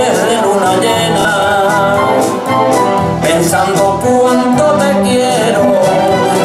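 Pasodoble song: male voices singing over a full instrumental backing with a steady beat.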